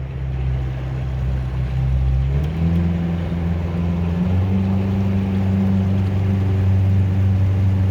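Motorboat engine running steadily, its pitch stepping up twice in the first half, about two and a half seconds in and again past four seconds, then holding at the higher speed.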